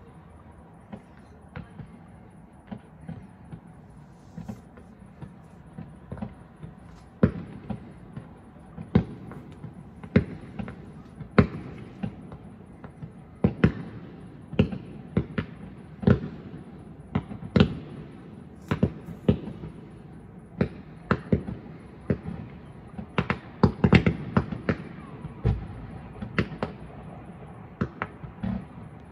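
Fireworks display: a string of sharp bangs from bursting shells and effects, a few at first, then coming thick and fast and loudest in the second half.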